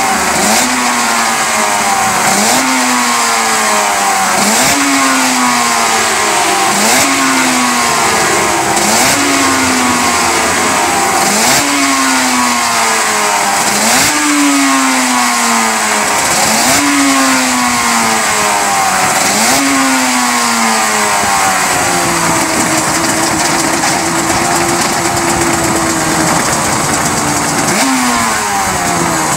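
Suter MMX 500 two-stroke V4 racing engine being blipped. The revs rise sharply and fall away again about nine times, roughly every two seconds. It then holds a steady idle for several seconds before one more blip near the end.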